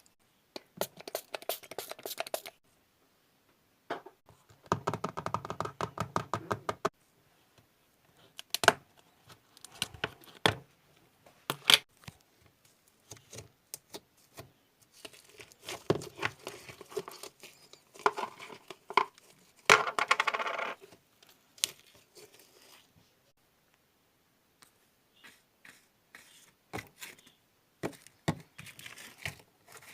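Slime being unboxed: bursts of crackling, tearing and clicking as the packaging is opened and the slime handled, with short pauses between, and one quick run of clicks about five seconds in.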